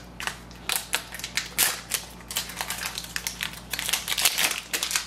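Clear plastic packaging crinkling and crackling in irregular bursts as hands pull an ink cartridge out of its bag.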